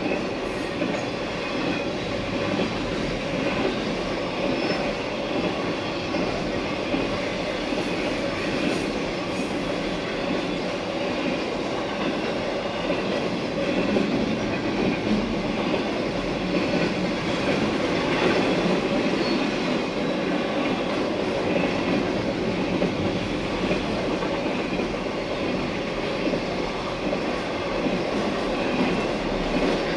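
Intermodal freight train passing close by, its trailer and container cars rolling over the rails in a steady, even wheel-on-rail noise.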